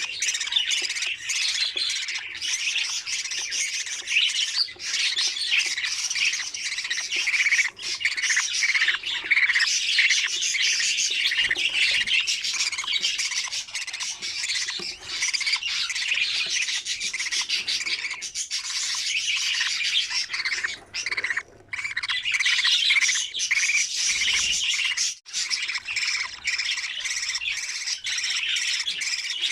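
Budgerigars squawking and chirping without pause, a dense rasping chatter of many birds, with short breaks about 21 and 25 seconds in.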